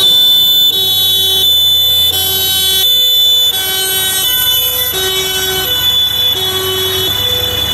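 German two-tone emergency horn (Martinshorn) on a THW Iveco Magirus truck, alternating evenly between a lower and a higher note, each held for under a second. The truck's diesel engine rumbles underneath as it drives past.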